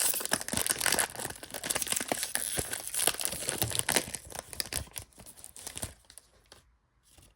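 Trading card pack wrapper crinkling and tearing as it is opened, dying away after about five seconds.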